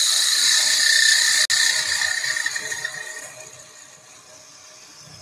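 Thin parting tool cutting into a small tulipwood piece spinning on the lathe: a steady hiss with a thin whistling ring, which fades out about three seconds in.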